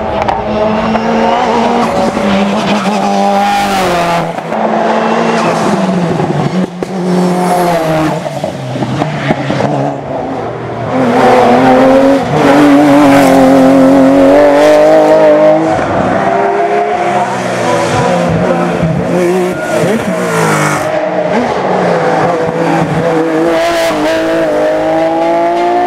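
Hillclimb race cars at full throttle, among them a Porsche 996 Cup with its flat-six and a Mitsubishi Lancer Evolution VIII. The engines rev high, their pitch rising through each gear and dropping at each shift, loudest about halfway through as a car comes close.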